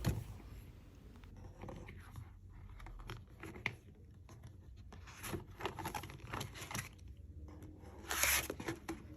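Handling noise from a disc-bound paper planner and its packaging being turned and moved: scattered light clicks, scrapes and rustles, with a louder rustle about eight seconds in.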